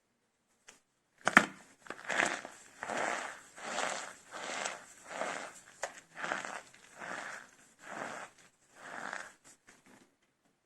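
Soap cups filled with starch being broken and crushed: one sharp crack about a second in, then a steady run of about nine crunches, roughly one every three-quarters of a second, that stops near the end.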